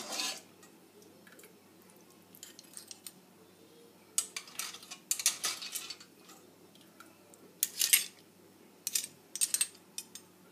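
Metal spoon clinking and scraping against a terracotta cazuela and the clam shells in it, in short clusters with quiet gaps between.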